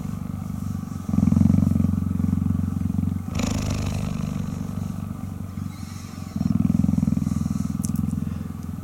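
Adult female cheetah purring right at the microphone: a continuous low rumble that swells and eases with her breathing, strongest from about a second in and again after about six seconds.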